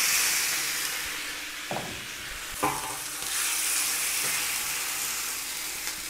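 Raw chicken pieces sizzling loudly as they hit a hot wok, with two sharp pops about two seconds in. Then water is poured into the hot wok and the hiss swells before settling.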